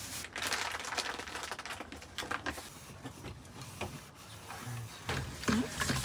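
Irregular light clicks, knocks and rustling of household items being handled.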